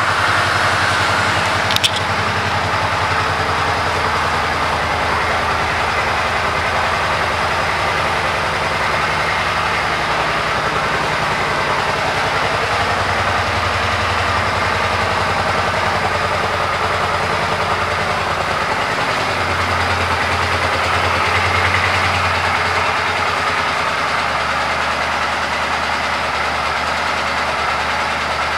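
2009 Suzuki Boulevard M50's 805 cc V-twin engine idling steadily, with a slight swell in the engine note about twenty seconds in.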